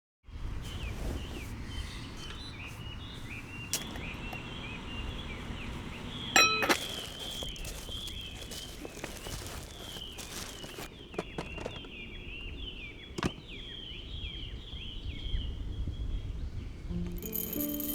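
Outdoor ambience of small birds chirping over and over in short falling calls, over a low rumble of wind. A few sharp knocks, the loudest a ringing clink about six seconds in, and music comes in near the end.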